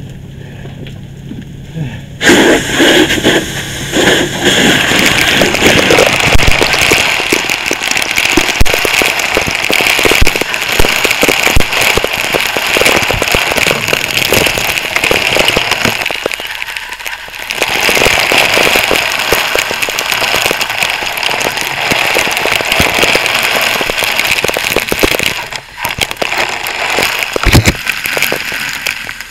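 Fire hose nozzle opened about two seconds in, water jetting into the burning garage with a loud hiss and spattering crackle. It cuts out for about a second near the middle, then flows again.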